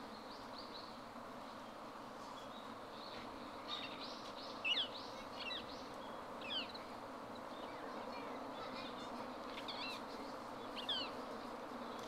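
Rose-ringed parakeet giving short, high, sweeping calls: a cluster between about four and seven seconds in, the loudest near five seconds, and another pair near eleven seconds. The calls sit over a steady background hum.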